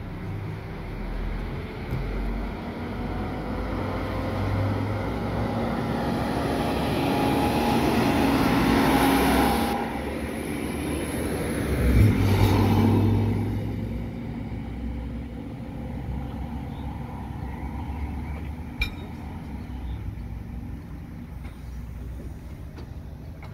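Diesel multiple unit (Alstom Coradia LINT) running past at close range, its diesel engine and wheels growing louder over the first ten seconds. A loud knock comes about halfway through as the wheels cross the level crossing, and then the sound fades away as the train leaves.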